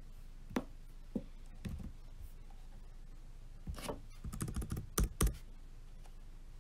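Typing on a laptop keyboard: a few separate clicks, then about four seconds in a quick run of keystrokes ending in two louder taps.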